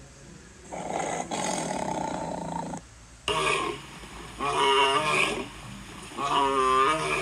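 Big-cat roar sound effects: a tiger roaring for about two seconds, then a lion roaring three times.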